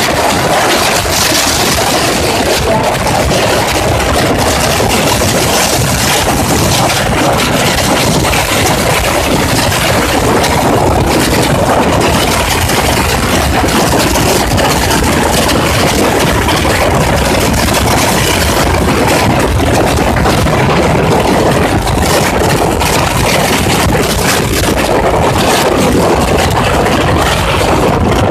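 Motorcycle riding steadily at road speed: the engine's running is mixed with a loud, even rush of wind over the microphone.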